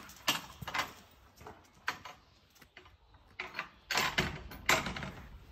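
Footsteps of a person and a dog walking on block paving: irregular taps and scuffs, busiest about four seconds in.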